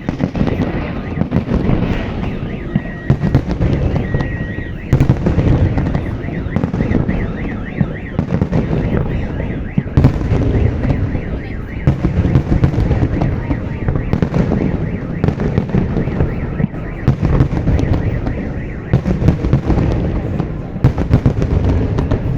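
A fireworks display with rapid, overlapping booms and crackling bursts, many a second and without a break. A warbling high tone sounds through the first several seconds.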